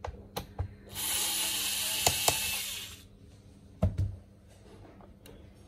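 Hands handling a laptop's bottom case during disassembly: a few sharp clicks, then a hiss-like scrape lasting about two seconds, and a single knock about four seconds in.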